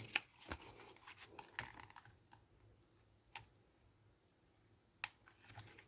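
A handful of faint, sharp clicks spread irregularly over several seconds, with near silence between them: buttons being pressed and the radio handled.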